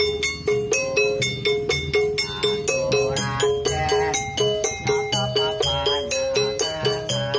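Small street percussion ensemble playing: a keyed percussion instrument in a wooden box struck with mallets in quick, even notes about four a second, over a pulsing low bass and the jingle of a tambourine.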